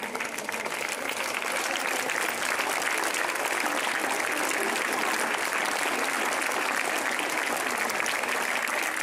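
A large crowd of schoolchildren clapping, a sustained round of applause that swells over the first couple of seconds and then holds steady.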